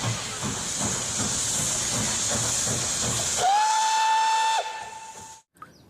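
Steam locomotive: a steady hiss of steam with rapid, even chuffing, then one steam-whistle blast held for about a second, which fades out afterwards.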